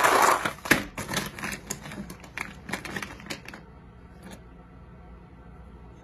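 Crayons rattling and clattering against each other and a clear plastic tub as hands shake it and rummage through it. It starts with a loud rattle, then a run of quick clicks that dies away about three and a half seconds in, with one more click a little later.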